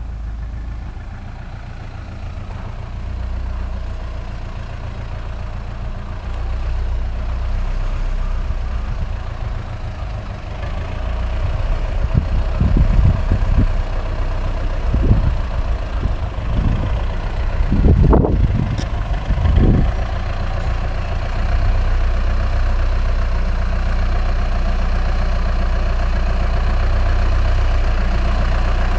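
Zetor 7011 tractor's four-cylinder diesel engine running steadily, with a handful of thumps about halfway through, one sharper than the rest. The engine grows louder about two-thirds of the way through.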